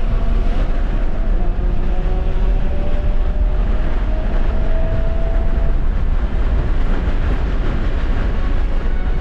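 Tesla Model 3's electric drive motor whining and rising in pitch under full-throttle acceleration on track, heard inside the cabin over heavy tyre, road and wind noise. The whine fades after about six seconds as the driver lifts off.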